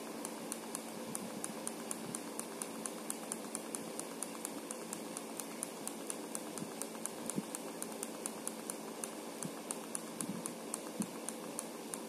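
Small USB LED clock fan running: a steady motor-and-blade hum with a light, even ticking at about four to five ticks a second.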